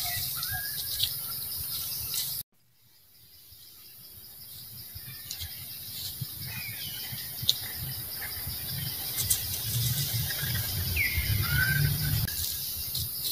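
Outdoor ambience of insects buzzing in a steady, high, pulsing drone with scattered bird chirps. About two and a half seconds in the sound cuts out and fades back up, and a low rumble grows louder through the second half, with a few short chirping calls near the end.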